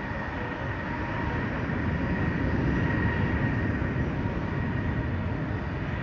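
Jet airliner engines running near idle on the taxiway: a steady rumble with a thin high whine, a little louder through the middle.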